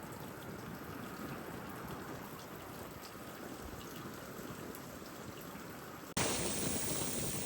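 Steady wash of distant ocean surf. About six seconds in it cuts abruptly to louder surf, with wind buffeting the microphone.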